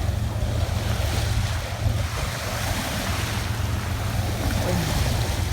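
Ocean surf washing on a rocky beach, a steady rushing noise, with wind buffeting the microphone in a low rumble.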